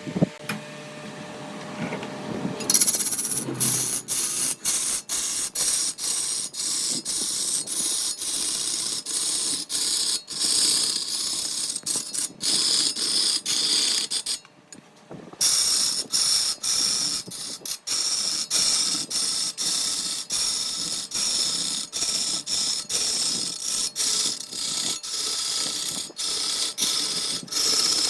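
Wood being worked by a tool, a steady high-pitched scraping hiss that starts about three seconds in and is broken by many short gaps.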